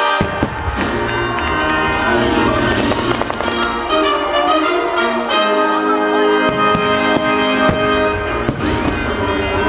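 Aerial fireworks shells bursting with repeated bangs and crackling, over loud show music with brass playing sustained chords.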